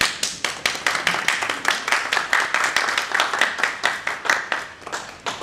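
A small audience applauding. Many separate hand claps are heard, and they thin out and die away near the end.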